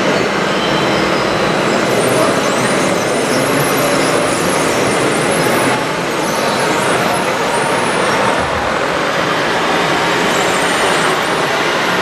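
Scale RC tipper truck's electronic sound module playing a diesel truck engine running, steady throughout, over the hum of a busy exhibition hall.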